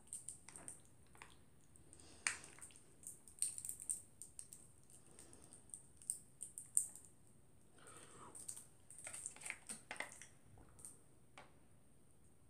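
A foil snack packet crinkling in a hand as it is tipped and shaken over a bowl: faint, irregular crackles and clicks in clusters that stop about a second before the end.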